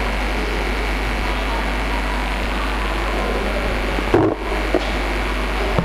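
Steady hiss and low hum from a live public-address microphone with no one speaking into it. About four seconds in comes a short low thump, then a smaller one, as the microphone is gripped and adjusted.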